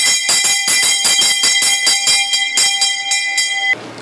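A bell ringing rapidly and continuously, its clapper striking about eight to ten times a second; it cuts off suddenly near the end.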